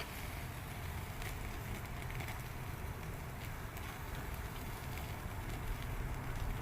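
Grill fire crackling faintly with a few scattered pops over a steady low rumble.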